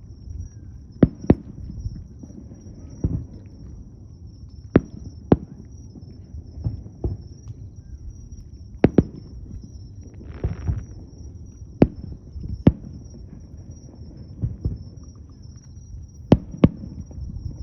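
Aerial fireworks shells bursting: sharp bangs, several in quick pairs, over a continuous low rumble, with a brief hissing crackle about ten seconds in.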